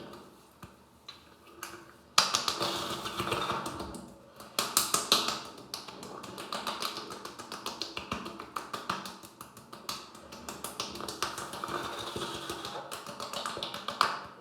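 Rapid, irregular tapping and patting, starting about two seconds in and stopping near the end.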